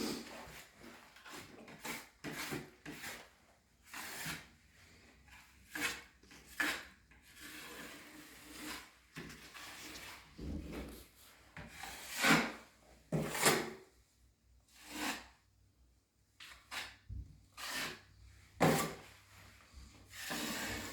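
An 8-inch drywall taping knife scraping joint compound across a sunken drywall patch in repeated, uneven strokes, a few noticeably louder than the rest, as the low spot is filled and smoothed.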